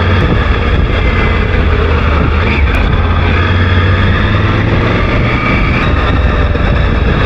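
Triumph Tiger 900 Rally Pro's three-cylinder engine running at a steady road speed, under a steady rush of wind and tyre noise on a wet road.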